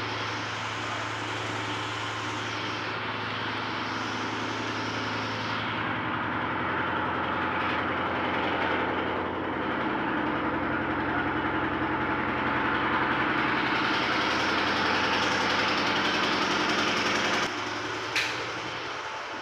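A steady machine drone, engine-like, with a fine rapid pulse. It drops away abruptly near the end, and a single sharp click follows.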